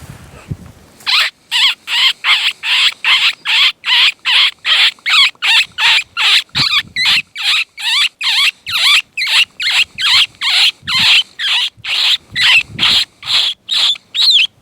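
Mouth-blown diaphragm predator call (MFK Double Slash) playing a cottontail rabbit distress series: rapid, loud, wailing squalls, each note bending downward, about three a second, starting about a second in and running on without a break.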